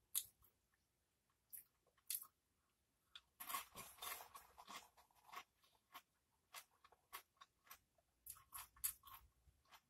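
Close-miked crunching of a Doritos tortilla chip coated in Rotel cheese dip being chewed: scattered crisp cracks, with a thick run of crunching from about three to five and a half seconds in.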